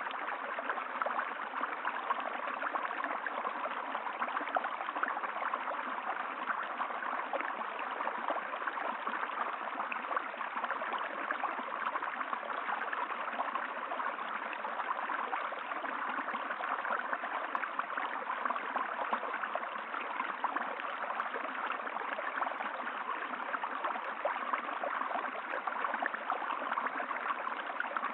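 Water of a stream flowing steadily, an even rushing and gurgling with no pauses.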